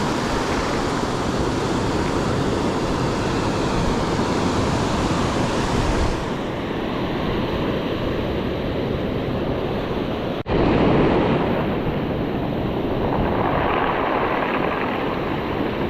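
Ocean surf washing and breaking on the shore in a steady rush, with wind buffeting the microphone. About ten seconds in there is a sudden brief dropout, after which the surf comes back louder.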